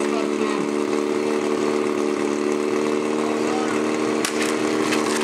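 Portable fire pump engine running at a steady, unchanging pitch. About four seconds in a sharp crack, then scattered clattering as the team sets off.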